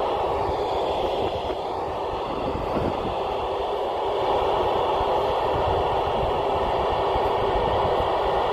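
Steady hiss of FM static from a handheld ham transceiver's speaker, squelch open while tuned for the SO-50 satellite's downlink, with no clear signal coming through. Wind buffets the microphone with an irregular low rumble underneath.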